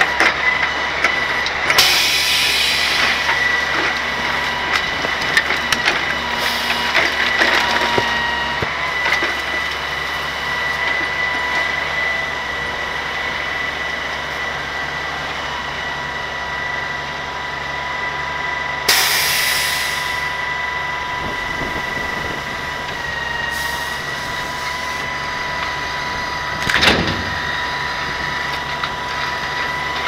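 A grapple truck running with its hydraulic grapple boom working, giving a steady high whine that dips slightly in pitch for a moment partway through. Two brief rushes of noise come and go, and there is a thump near the end as the claw reaches the truck body with its load of palm fronds.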